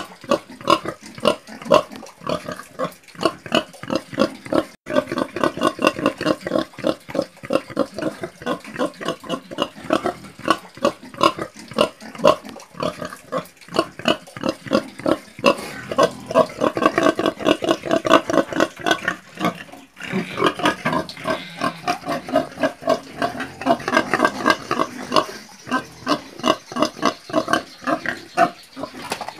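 Pigs grunting: a continuous run of short grunts, about three a second.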